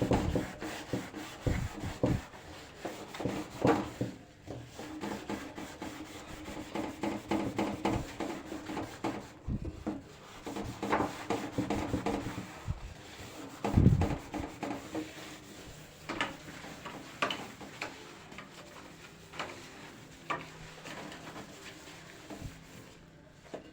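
Scrubbing and rubbing a surface by hand: irregular scraping strokes with scattered knocks, the loudest a dull thump about fourteen seconds in.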